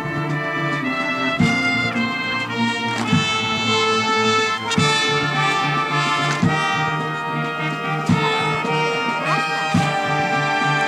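Military marching band playing a march, the brass carrying the tune over steady drum strokes.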